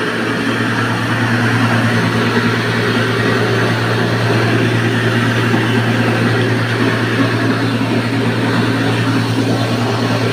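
Small electric stone flour mill (atta chakki) running steadily: a constant low motor hum under an even rushing noise.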